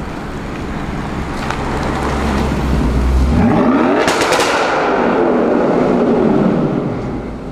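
Audi RS6 Avant C7's twin-turbo V8 through an Akrapovic exhaust, rumbling at low revs, then accelerating hard: the revs climb about three seconds in, a short burst of crackles comes around four seconds, and the revs fall away again. The acceleration echoes off the concrete walls of an underpass.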